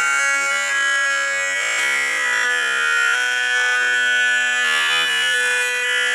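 Cartoon audio slowed down ten times, stretched into long, overlapping held tones that shift slowly in pitch, like an eerie drone.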